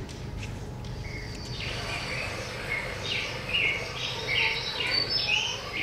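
Birdsong played as a stage sound effect: short, repeated chirps that come in about a second and a half in and grow busier, over a low steady hum.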